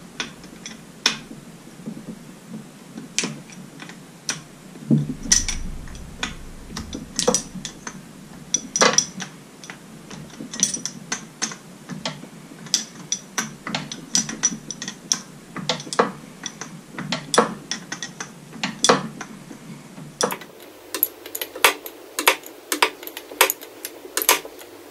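Hand tool working the carburetor bolts of a Mercury Thunderbolt 500 outboard: a run of sharp metallic clicks and taps. They are irregular at first and come quicker, about three or four a second, in the last few seconds.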